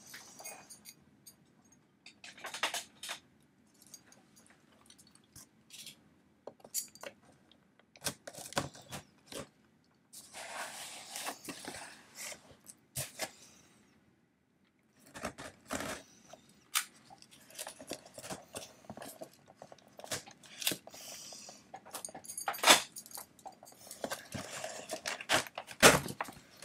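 Cardboard shipping box being opened by hand: a blade slitting the packing tape, tape tearing away, and cardboard flaps rustling and knocking. The sound comes as scattered clicks and short tearing stretches, busier in the second half.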